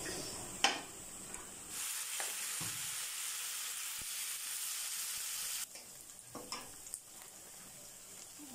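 Sliced onions sizzling in hot oil in a metal karahi, stirred with a flat metal spatula that scrapes and clicks against the pan. The sizzle turns louder about two seconds in and eases off after about five and a half seconds.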